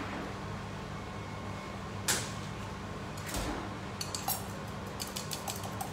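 Fork beating egg in a small bowl: a rapid run of clicks against the bowl starting about four seconds in, after a single knock about two seconds in. A steady low hum runs underneath.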